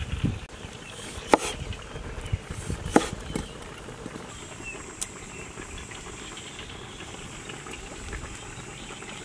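Two sharp knocks of a cleaver chopping through a lime onto a wooden cutting board, about a second and a half apart, with a few lighter taps. Steady outdoor hiss underneath, and a faint high steady tone from about halfway through.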